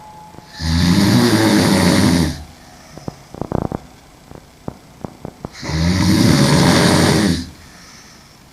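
A young woman sleeping on her back, snoring loudly. There are two long snores, each nearly two seconds, about five seconds apart, with a few faint clicks in the quiet between them.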